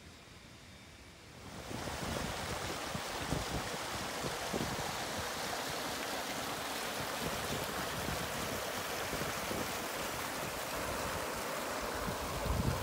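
Rushing water of shallow river rapids pouring over rocks, a steady loud noise that starts about one and a half seconds in.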